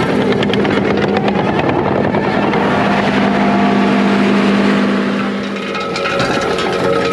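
A skid steer's engine runs steadily under load while its Ruckus Rake power rake spins its drum through loose dirt, with stones and clods rattling and ticking against it. About six seconds in the engine note dips briefly and then changes pitch.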